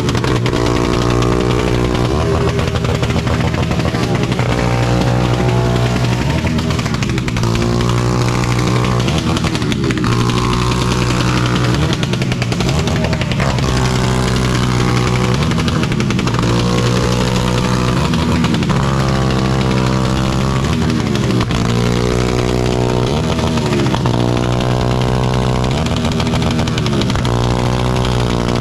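Motorcycle engines: one idling steadily underneath while another is revved again and again, its pitch climbing and dropping every second or two.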